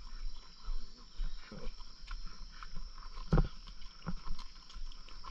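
A hiker's scattered footsteps and hard breathing while climbing a steep trail, the loudest breath or grunt about three and a half seconds in, over a steady high insect trill.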